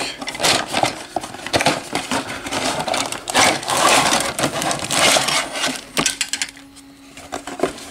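Hard plastic miniature sprues clattering and rattling against each other and a cardboard box as they are lifted out, with a plastic bag rustling. The handling noise dies down about six seconds in.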